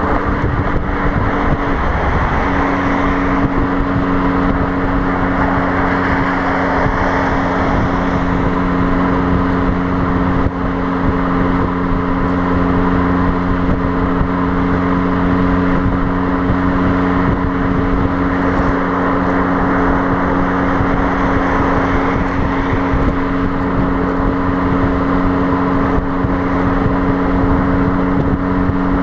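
Fiat Abarth 595's 1.4-litre four-cylinder exhaust droning steadily at motorway cruise. Heavy wind and road noise come through a microphone mounted by the rear number plate. The note drops slightly about two seconds in, then holds steady.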